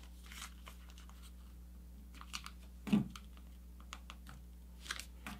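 Faint rustling, sliding and soft taps of a sheet of paper being folded and creased by hand, with a slightly louder knock about three seconds in.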